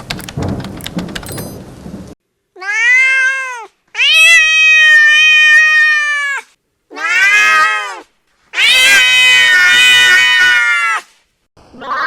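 Rain and thunder for about two seconds, then cutting off abruptly. After a short silence, a domestic cat meows angrily four times; the second and fourth meows are long and drawn out, and the last is the harshest.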